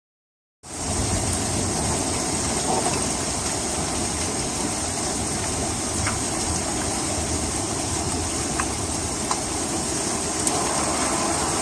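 Hail storm: a steady, dense rush of hail and heavy rain, with a few separate sharp hits standing out. It cuts in abruptly under a second in.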